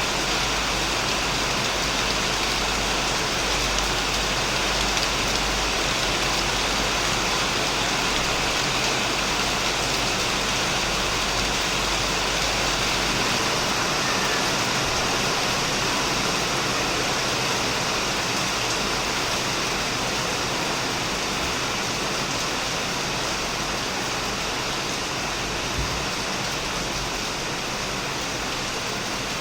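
Heavy rain falling steadily on a shed roof: an even, unbroken hiss of drops.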